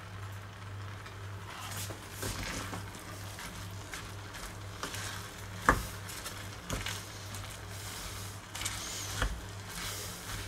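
Wooden spoon stirring sliced almonds in a thick, sticky glaze in a stainless steel pot: soft scraping, with a few sharp knocks of the spoon against the pot midway. A steady low hum runs underneath.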